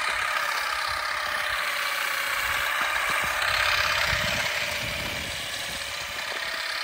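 Electric olive harvester powered from a tractor battery, running in the tree with a steady whirring buzz as its beating tines shake olives off the branches.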